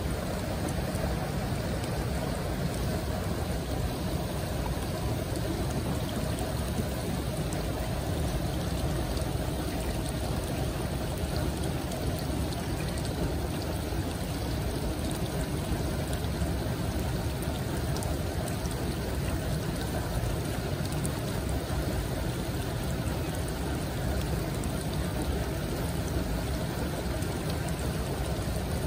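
Steady rush of running water, an even wash of sound with no breaks.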